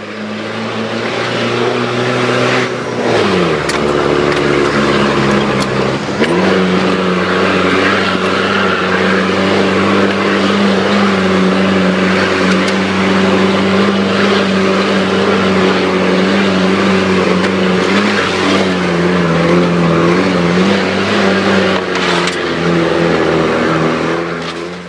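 Off-road 4x4's engine, heard from inside the cab, pulling steadily along a dirt track. Its pitch drops about three seconds in, climbs back up around six seconds, then holds with small rises and falls.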